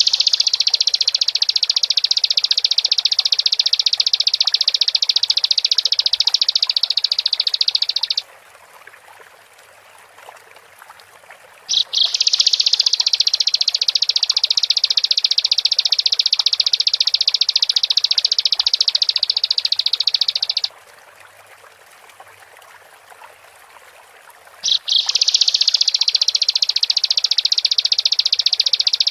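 Bar-winged prinia (ciblek) singing its full, rapid, high-pitched chattering song in long unbroken bouts of about eight seconds. There are three bouts with short pauses between them.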